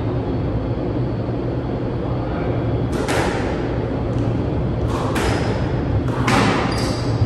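A squash rally: the ball smacked by rackets and slapping off the court walls, about five sharp echoing hits in the second half, over a steady low hum.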